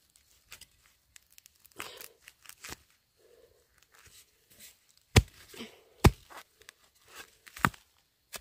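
Fresh bamboo shoots being handled and peeled: husk sheaths tearing and crackling, with three sharp knocks in the second half.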